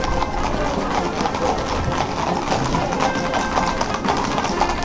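Hooves of several horses clip-clopping on an asphalt road as they walk past, a dense irregular patter of hoofbeats.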